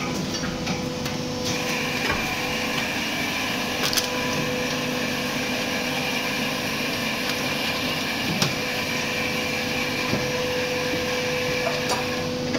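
Plastic injection moulding machine running: a steady hum with a high whine that starts shortly in and stops near the end, and a few short knocks.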